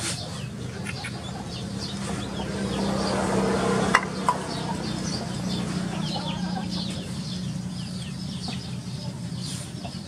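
Chickens calling in short, repeated notes over a steady low hum, with two sharp clicks about four seconds in.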